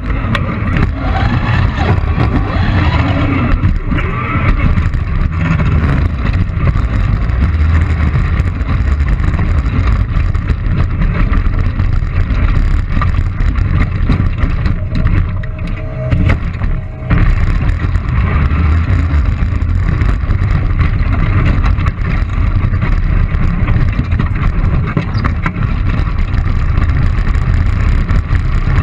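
Heavy, steady rumble with frequent knocks, heard on board an FRC competition robot as it drives and jolts around the field. It dips briefly about two-thirds of the way through.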